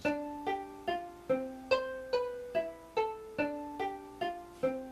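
Computer-sequenced synthesizer playing a steady stream of short struck notes that die away, about two and a half per second, jumping between pitches: a C major scale played in a randomly chosen order that repeats.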